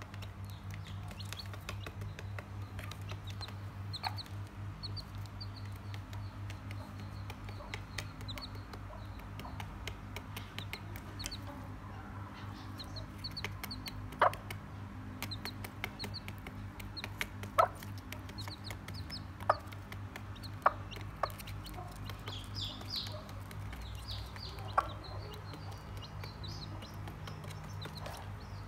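Mini hen clucking softly while her chicks peep in short high notes, over a steady low hum. In the second half come about six sharp taps, a few seconds apart, as her beak pecks feed off the cardboard floor of the box.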